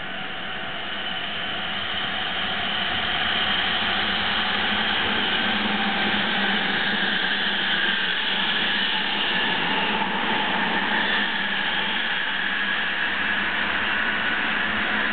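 An electric limited express train passing through the station: a steady rush of wheels on rail and running gear. It swells over the first few seconds, then holds loud as the cars go by.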